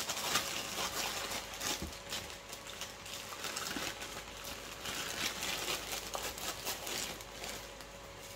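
Plastic bag of frozen diced green peppers rustling and crinkling as it is opened and handled, with small irregular clicks and knocks.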